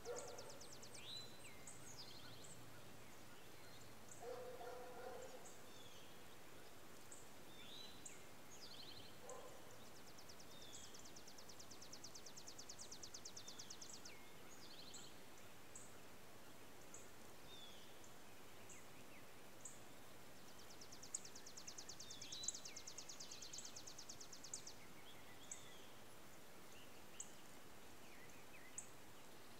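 Faint birdsong over a steady background hiss: several high, rapid trills lasting a few seconds each, mixed with short down-slurred notes and sharp chirps.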